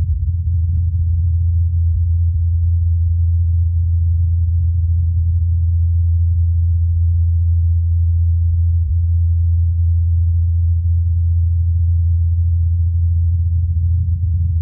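Rotor blades of NASA's Ingenuity Mars helicopter spinning at 2,537 rpm in flight, a steady low hum, heard through the Perseverance rover's SuperCam microphone.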